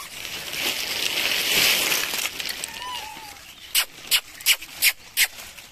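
A rushing, hissing noise for about two seconds, then a faint short squeak, then five sharp clicks in quick even succession, about three a second.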